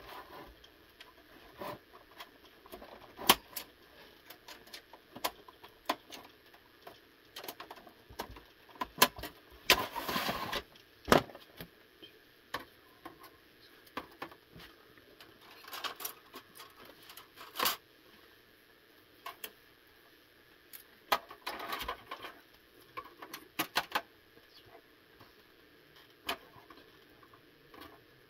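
Scattered clicks and clatters of metal shielding and plastic casing parts of an Xbox 360 console being handled and taken apart by hand, with a screwdriver at work on a metal bracket at the start. Two longer rustling scrapes come about ten seconds in and again around twenty-two seconds.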